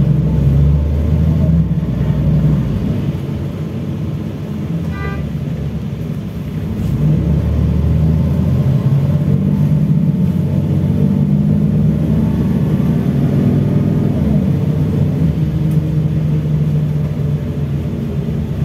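Interior ride noise of a LiAZ-5293 low-floor city bus under way: a steady low engine and drivetrain rumble that eases off between about three and six seconds in, then builds again and holds.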